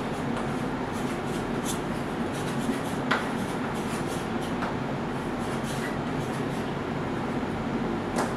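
Steady background hum with faint, scattered scratching of chalk writing on a slate, and a small click about three seconds in.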